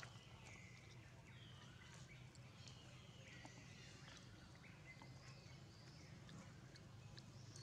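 Faint animal calls, a short falling whistle-like call repeated about once a second, over a low steady hum with a few scattered ticks.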